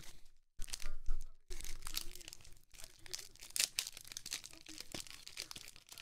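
Paper pack wrapping crinkling and tearing while hard plastic graded-card cases are handled, with scattered light clicks. The rustling is loudest about a second in.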